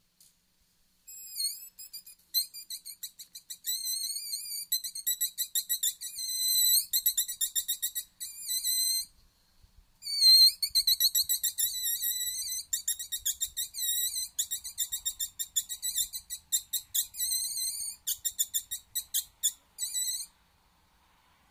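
Wolfers harp fox call, a mouth-blown predator call, blown in long series of high, squealing squeaks. Most are short rapid pulses, with some drawn-out wavering squeals, used to lure a fox. It pauses briefly about halfway through and stops shortly before the end.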